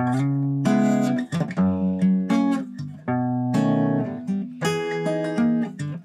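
Acoustic guitar played on its old strings, not yet replaced: a run of chords, each struck and left ringing.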